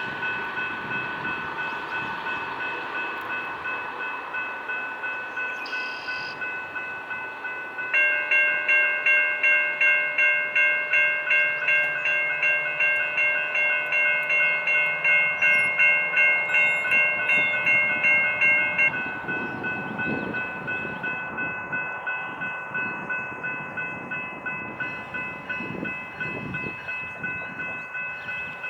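Railroad crossing warning bells ringing in a steady, even pulse while a double-stack freight train passes over the crossing. About eight seconds in, a louder bell joins for around eleven seconds, then stops.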